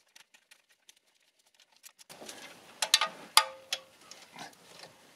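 Socket wrench on a long extension bar turning an oil-sump bolt. Mostly quiet at first, then from about two seconds in a rustling scrape and a few sharp metal clicks, the first two ringing briefly.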